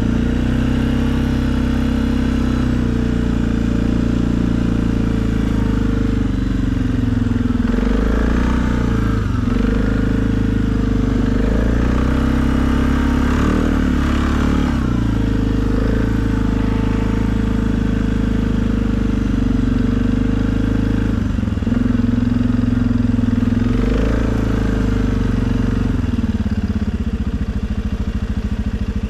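2020 Suzuki KingQuad ATV engine running steadily, its pitch dipping and picking back up a few times as the load changes while plowing snow.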